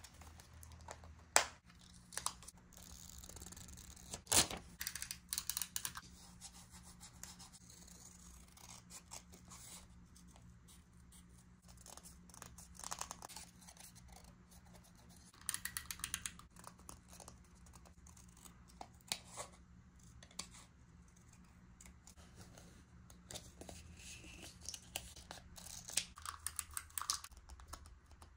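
Paper and stationery handled close up for journal decorating: paper rustling and sliding, with scattered sharp clicks and snips such as scissors make.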